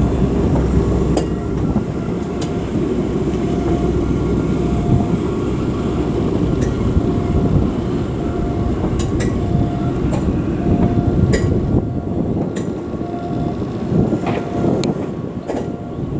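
Shinkansen rail car being moved slowly along depot track by a shunting car mover: a steady low rumble with scattered metallic clicks and a short warning beep repeating about once a second.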